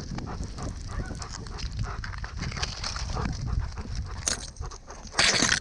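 A dog on the move: its panting and footfalls among a run of small rustles and clicks, with a short loud burst of rustling noise near the end.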